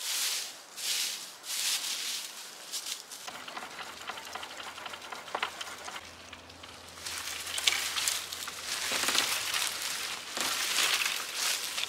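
Dry fallen leaves crunching in a few quick scoops as they are gathered by hand, then thin bare saplings rustling with sharp cracks and snaps as stems are pulled and bent.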